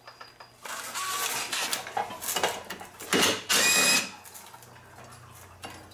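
Cordless impact driver with a Torx T30 bit running against a front brake rotor's retaining screw to loosen it, in several short spells, the loudest two shortly after the middle.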